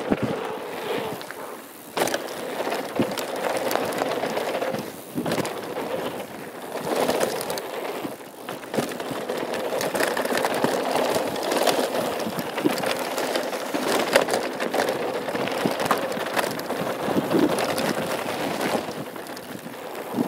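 2013 Norco Truax hardtail mountain bike rolling fast down a dirt trail: tyre noise on packed dirt and loose gravel, with frequent clicks and rattles of the chain and frame over bumps.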